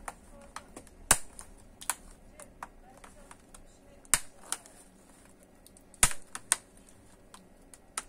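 Small hand tools and laptop parts being handled: scattered sharp clicks and taps, about six in all, irregularly spaced.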